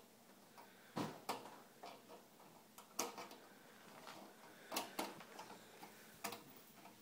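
Scattered sharp clicks and taps of a screwdriver and fingers working the screws and motherboard inside a Vizio LCD TV's sheet-metal chassis. There are about six, with a pair close together about a second in and another pair near five seconds.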